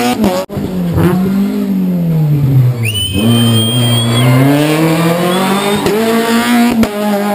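Rally cars at full throttle on a tarmac road, their engine notes rising and falling as they rev, shift and brake, with short breaks in the sound. A high tyre squeal starts about three seconds in and lasts just over a second.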